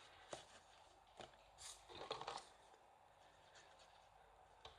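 Faint rustling and light taps of cardstock being handled, a few short scrapes with the loudest cluster about two seconds in.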